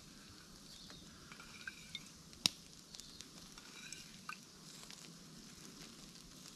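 Crayfish chunks sizzling faintly in a wire grill basket over campfire coals as liquid is poured on from a mug, with a few light ticks and one sharp click about two and a half seconds in.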